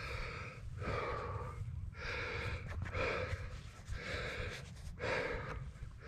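A man breathing hard through his mouth, about one heavy breath a second, winded from hiking uphill.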